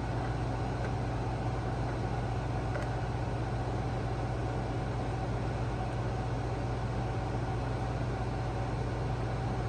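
Steady hum of an air conditioner running, with a low drone and a faint even whir above it that does not change.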